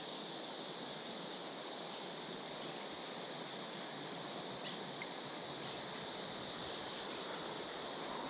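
Steady high-pitched droning chorus of 17-year periodical cicadas, unbroken throughout.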